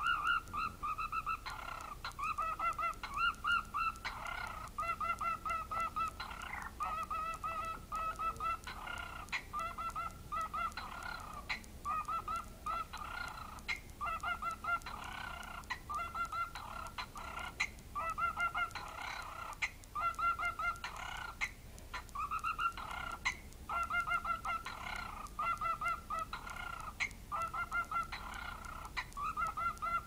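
Cockatiel beatboxing: bursts of quick, evenly repeated beeps, each burst about a second long, following one another with short gaps.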